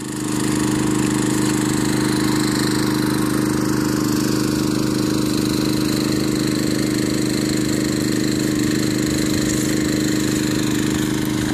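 Engine-driven 3-inch water pump running steadily after being throttled up, a constant engine drone with no change in speed.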